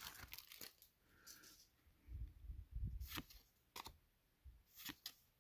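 Faint handling of Pokémon trading cards: scattered light clicks and soft rustles as the cards are shifted from hand to hand, with a few soft low thumps about two to three seconds in.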